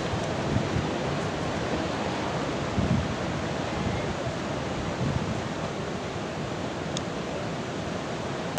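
Steady outdoor wind noise, with low buffets of wind on the microphone now and then.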